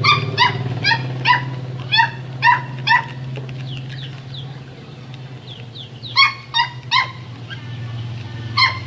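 A dog barking in short, high yaps, about two a second for the first three seconds, then a few more near the end, over a steady low hum.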